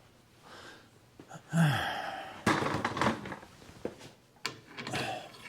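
A man grunting and breathing with effort while working a steering-box part into place, mixed with sharp metal clicks and scraping as the part seats.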